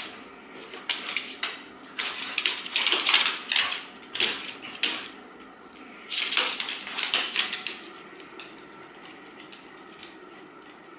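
Dogs' claws clicking and scrabbling on a hardwood floor as two dogs play, in several quick bursts of clatter, the loudest between about two and four seconds in and again around six to seven seconds, then fading to scattered faint ticks.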